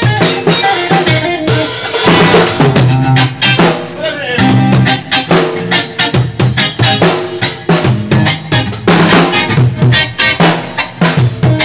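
Rock band jamming live: electric guitar played through amplifiers over a full drum kit, with a steady beat of kick and snare drum and cymbal hits.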